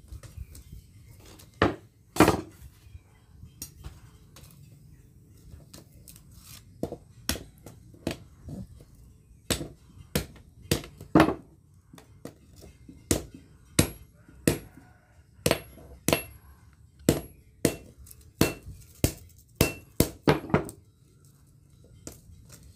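Blacksmith's hand hammer striking a hot pamor steel bar on the anvil: about two dozen blows at an uneven pace, a few scattered at first, then coming about twice a second, some leaving a short metallic ring. A low steady rumble runs underneath.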